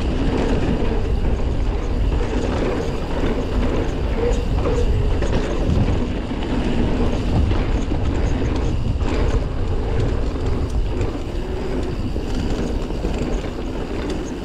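Commencal Meta TR full-suspension mountain bike rolling fast down a dirt singletrack: a steady rumble of the tyres on the dirt and the bike rattling over bumps, with a few scattered clicks.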